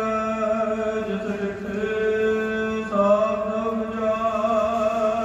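Sikh devotional singing (Gurbani kirtan): a voice holding long, steady chanted notes, moving to a new note about three seconds in.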